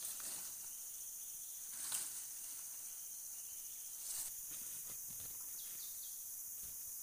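Steady high-pitched insect chorus, with brief rustles and crackles of leaves and undergrowth being brushed and trodden, about two seconds and four seconds in.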